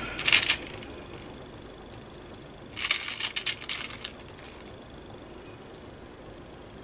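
Small clicks and rustling from handling beads, head pins and jewellery tools on a work table: a few light ticks, then a burst of clicking about three seconds in that lasts about a second.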